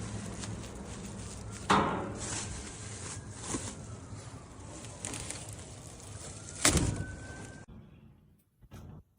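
Two sharp knocks about five seconds apart, the second the loudest, over a steady low background rumble that cuts off suddenly near the end.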